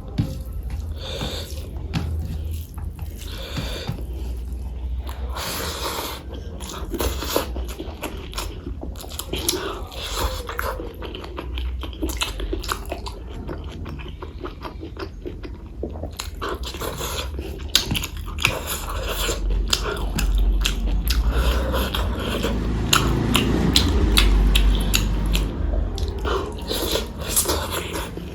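Close-miked chewing and biting of food, with crunching and many sharp, irregular wet mouth clicks. A low steady hum runs underneath.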